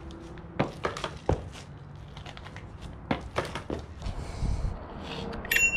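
Varla Eagle One electric scooter being handled: a run of sharp clicks and knocks as its suspension is bounced and the brake worked, then near the end a short, high electronic beep from the scooter's controls.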